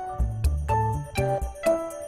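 Background music: a light tune of tinkling, bell-like notes over a bass line, with a regular percussive beat.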